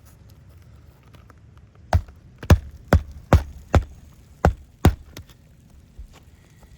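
A hammer striking roofing nails into asphalt shingles: seven sharp blows in quick succession, about two to three a second, starting about two seconds in.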